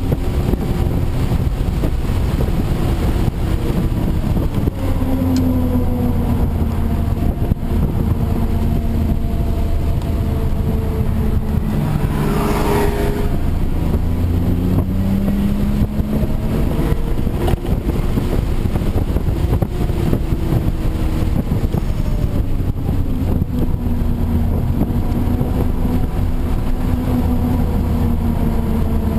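Audi B5 S4's 2.7-litre twin-turbo V6 heard from inside the cabin at track pace, its pitch climbing under acceleration and dropping off for braking, several times over. A brief rushing hiss sounds about twelve seconds in.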